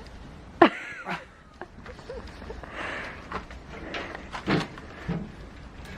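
A single sharp strike into an oak log a little over half a second in, splitting firewood. Scattered quieter knocks and thuds follow.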